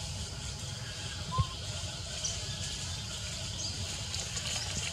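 Outdoor ambience: a steady hiss with a low rumble underneath, broken by one brief chirp and a soft thump about a second and a half in.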